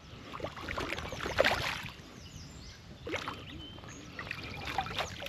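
River water splashing a few times, about a second and a half in and again about three seconds in, over a steady rush of flowing water, as a hooked smallmouth bass is fought at the surface and brought in.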